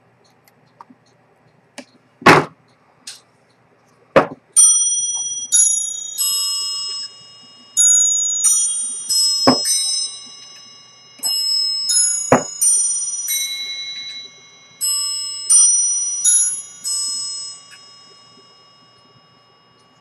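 A run of high, bell-like chime notes at several pitches, each struck and fading over about a second, spaced unevenly. Four sharp knocks fall among them, the loudest about two seconds in.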